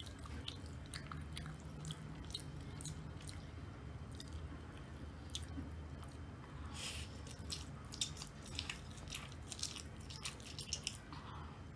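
Close-miked chewing of instant ramen noodles, with wet mouth clicks that come thicker and louder from about seven seconds in.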